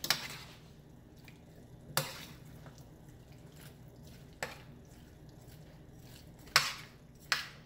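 Metal spoon scraping and knocking against a stainless steel pan while stirring chunky chicken and vegetable stew. There are five separate strokes, a second or two apart, and the loudest comes near the end.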